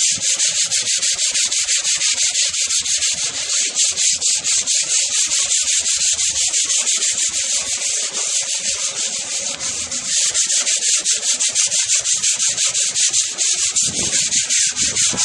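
Sandpaper worked by hand in fast back-and-forth strokes over a rusted metal toolbox, scouring off rust and old paint before repainting. The strokes are steady and even, easing off a little in the middle.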